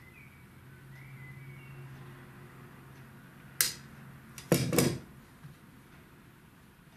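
A spoon clinking against a dish: one sharp tap about three and a half seconds in, then a short clatter about a second later. A faint low hum runs underneath.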